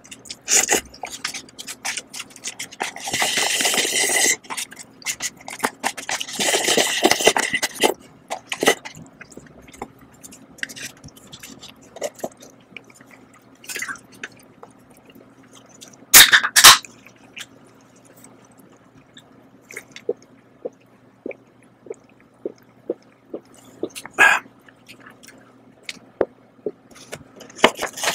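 Close-up eating sounds of instant cup noodles: two long, loud slurps of noodles in the first eight seconds, then sparse small mouth and chopstick clicks, with two sharp clicks about halfway through. Near the end comes crinkly rustling as a seasoning sachet is torn open.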